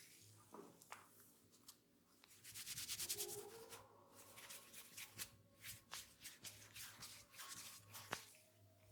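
Hands rubbing an oiled scalp and hair during a head massage: a fast burst of rapid rubbing strokes about two and a half seconds in, then softer scattered rubbing and light clicks.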